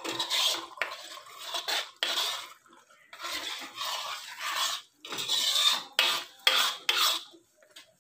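Metal spoon stirring curry gravy in a steel kadai, scraping against the pan in a run of irregular strokes that stop shortly before the end.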